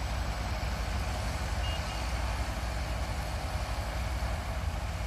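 Heavy diesel engine of a self-propelled combine harvester running steadily, with two short high beeps about two seconds in.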